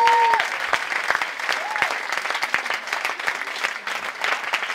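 Audience applauding, with a short high-pitched cheer from one person right at the start and another brief one about two seconds in; the clapping thins slightly toward the end.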